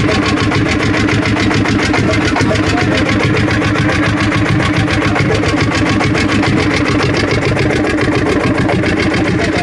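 A 1959 Lanz Bulldog D2416 tractor's single-cylinder two-stroke hot-bulb engine running steadily at idle, with a fast, even beat, freshly restored and running again after 15 years.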